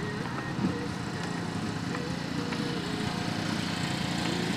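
Steady hum of a car's engine and road noise, heard from inside the moving car.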